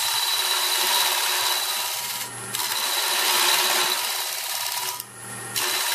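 Carbide cutter on a Jamieson boring bar taking a light clean-up cut inside a spinning mesquite hollow vessel on a wood lathe: a steady hissing scrape of wood being shaved. It breaks off twice, briefly about two seconds in and again near the end, when the cutter comes off the wood and only the lathe's low hum is left.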